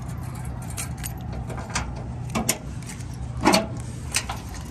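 Keys jangling and clicking in the lock of a Subaru Sambar truck's rear engine-access panel, then a clunk about three and a half seconds in, the loudest sound, and a smaller knock after it as the panel is unlatched and swung down.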